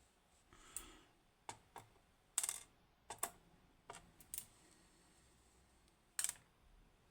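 Scattered small metallic clicks and taps, about nine at irregular intervals. These are tiny pins from a disassembled Kaba Ace lock being handled and set down one by one. The sharpest clicks come a little over two seconds in and about six seconds in.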